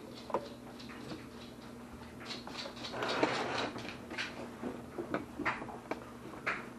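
Scattered small clicks and knocks with a short rustle about three seconds in: hands adjusting a sewing machine's settings and handling the thread and fabric. A faint steady hum runs underneath.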